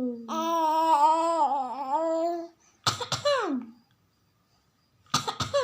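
A young child's voice: a long, wavering drawn-out vocal sound, then two short forced coughs about two seconds apart, each trailing off in a falling voiced sound. The coughs are pretend ones, a child playacting a cough.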